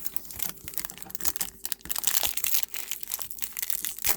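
Crinkling and tearing of a trading card pack's foil wrapper being opened and handled, in a dense run of irregular crackles.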